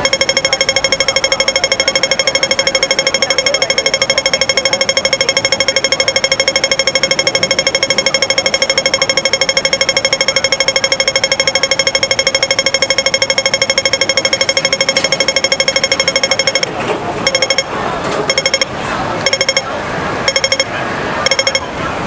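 Hong Kong pedestrian crossing audible signal ticking rapidly while the green walk signal is lit. About 17 seconds in, the fast ticking stops and gives way to sparse, uneven ticks with street and crowd noise between them.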